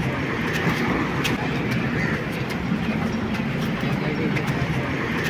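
Steady road traffic noise: a constant low engine rumble under a general hum, with scattered light clicks.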